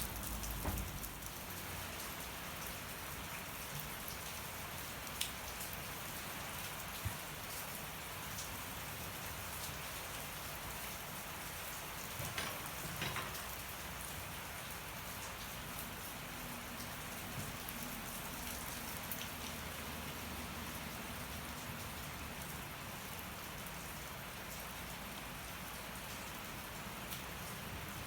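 Steady rain falling on surfaces, with a wood fire burning and a few sharp crackling pops from the fire.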